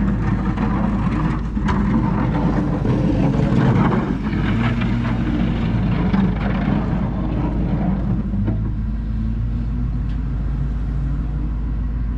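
Truck engine running steadily close by, a deep even hum with no change in speed.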